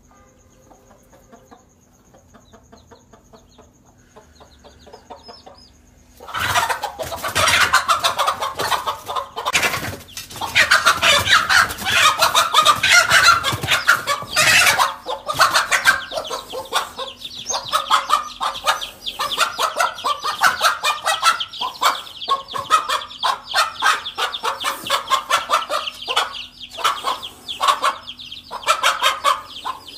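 A hen clucking and squawking loudly in rapid, agitated calls, starting suddenly about six seconds in after a few seconds of faint sound: the alarm and defence calls of a mother hen confronting a snake near her chicks.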